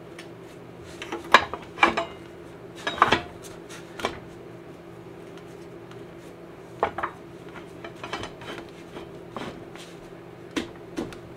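Irregular metallic clinks and knocks as the Yamaha V Star 1300's rear wheel and brake bracket are shifted by hand on the jack to line up the axle hole, over a steady faint hum.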